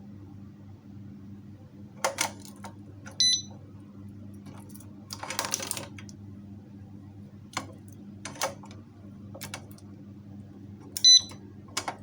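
Alarmed motorcycle disc lock giving two short, high electronic beeps, about three seconds in and again near the end. Between them come scattered clicks, knocks and a brief rattle.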